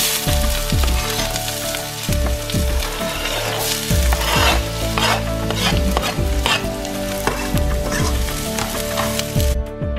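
Diced vegetables sizzling and being stirred in a hot sauté pan, a steady frying hiss that cuts off near the end. Background music with a steady beat plays underneath.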